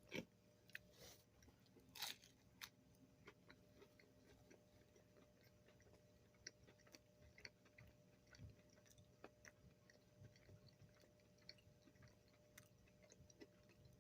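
Faint, close chewing of chicken nuggets, with a few sharper bites in the first two seconds, the loudest about two seconds in, then soft scattered mouth clicks.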